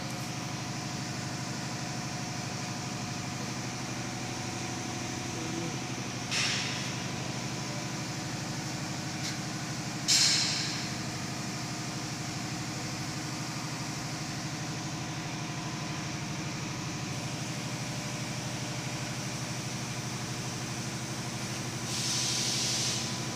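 Steady electric-motor hum of a running radial drill machine. Short hisses come about six and ten seconds in, the second the loudest, and again near the end.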